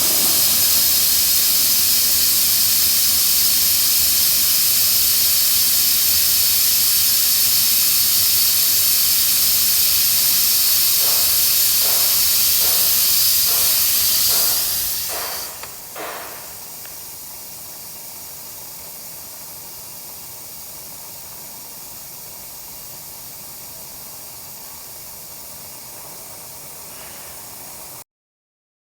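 Loud, steady hissing noise, then a short series of knocks, after which the hiss drops sharply to a much quieter, duller level: the noise source being shut inside an acoustic enclosure.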